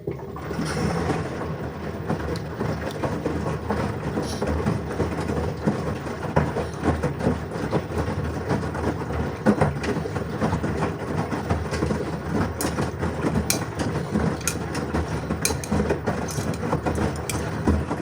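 LG washing machine running a wash, its drum turning with a steady noisy rumble and scattered sharp clicks in the second half.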